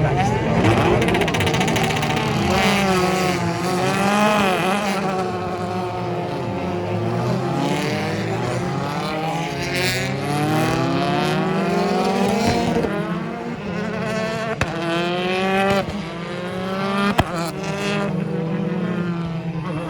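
A pack of BTCC touring cars, their turbocharged four-cylinder engines running hard, several at once rising in pitch and dropping again as they change gear and pass. Late on there are a few sharp cracks.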